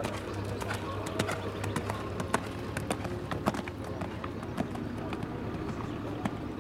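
Horse cantering on a sand arena: a run of uneven hoofbeats, dull thuds with sharp clicks.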